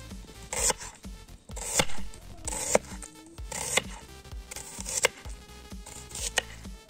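Chef's knife slicing through an onion into rings, each cut a crisp crunch ending in a knock on the cutting board, about six cuts roughly a second apart. Background music with held notes runs underneath.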